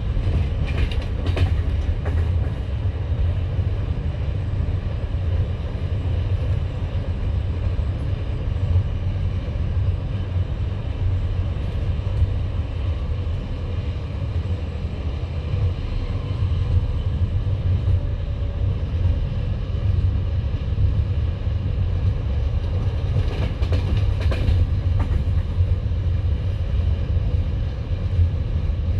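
Passenger train carriage running along the line, heard from inside: a steady heavy rumble of the wheels on the track, with a short run of clacking wheel knocks about a second in and another about five seconds before the end.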